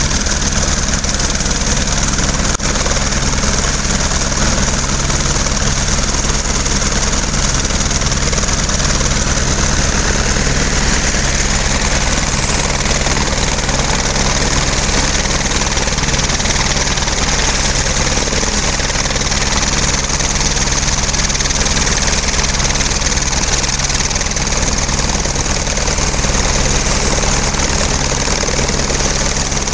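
Eurocopter AS 550 C2 Fennec helicopter running on the ground with its main rotor turning: a steady high turbine whine over the rapid low beat of the rotor blades.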